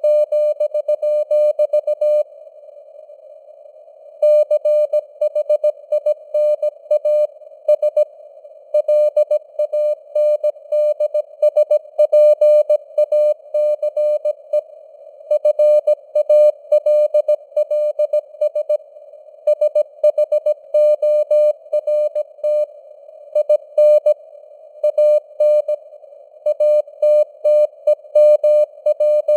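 Morse code (CW) sent at 17 words per minute: a single mid-pitched tone keyed into dots and dashes over a narrow band of simulated receiver hiss, its strength varying a little as it fades (QSB). There is a pause of about two seconds a couple of seconds in, then the keying resumes.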